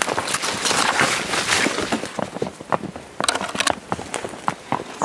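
Rustling and scraping of brush and branches against a rider's clothing and the camera while riding a mule through timber, dense at first, then giving way to scattered knocks and clicks.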